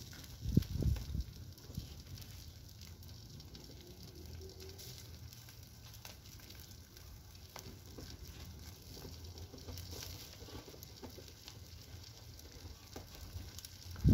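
Wood fire burning in a metal brazier, with faint crackles and a sizzle from a whole fish grilling in a wire basket over the embers. A low thump about half a second in.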